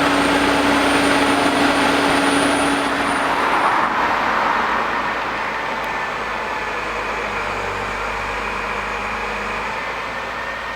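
Heavy foundation drilling rig's diesel engine and hydraulics running steadily, with a high whine and a held tone that drop away after about four seconds as the noise eases to a lower, steady level.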